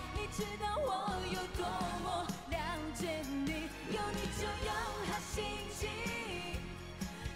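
A pop song performed live: a singer's voice over band accompaniment with a steady beat.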